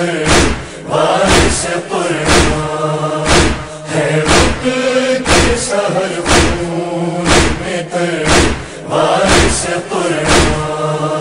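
A chorus chanting a lament refrain over a steady thump about once a second, the matam (chest-beating) beat that keeps time in a noha.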